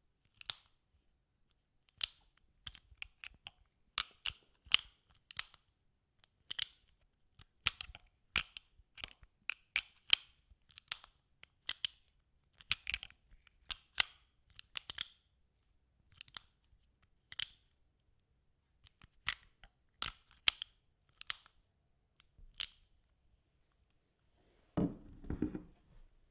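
A revolver being reloaded and handled: a long, irregular series of sharp metallic clicks and clacks, some with a brief ring. Near the end comes a duller, deeper thump.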